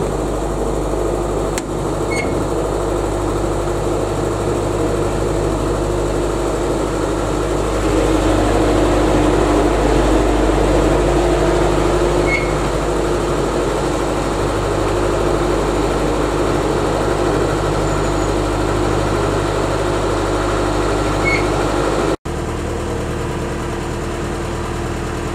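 Narrowboat's diesel engine running steadily with an even hum, with a momentary break near the end.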